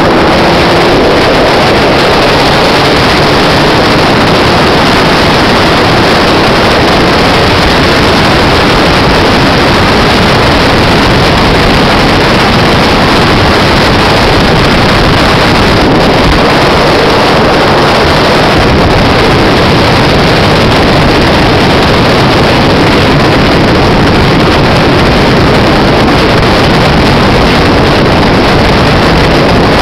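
Loud, steady wind buffeting the microphone of a camera on a motorcycle riding at road speed, mixed with the bike's engine and tyre noise.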